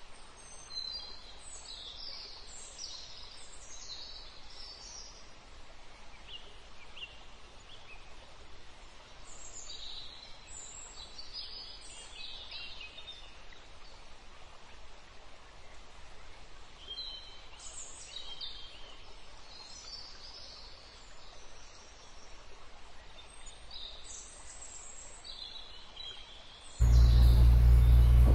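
Birds calling in forest: scattered groups of short, high chirps and whistles over a faint steady hiss. About a second before the end, the sound cuts abruptly to the loud, low rumble of a moving vehicle.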